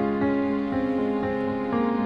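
Background music: a melody of held notes, each changing to the next every fraction of a second.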